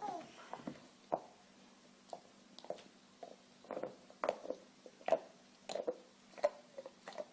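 A dog gnawing on a bone: a string of short, irregular clicks and soft knocks, about one or two a second.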